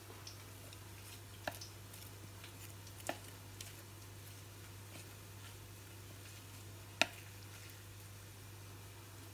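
Wooden chopsticks stirring courgette flowers through thin batter in a mixing bowl, soft wet squishing with a few sharp clicks as the chopsticks knock the bowl, the loudest about seven seconds in. A steady low hum runs underneath.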